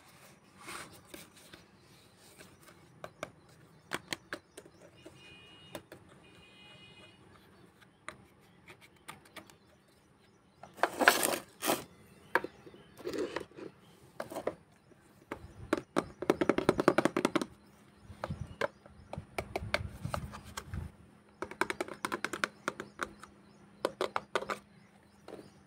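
Small plastic toy kitchen pieces handled: a toy water dispenser and its plastic bottle, and a plastic shelf unit. Scattered clicks and taps, with several short bursts of clattering and rubbing.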